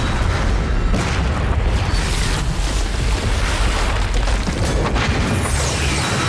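Film sound effect of a loud, deep, sustained rumbling boom with a rushing hiss over it, and a whooshing sweep near the end.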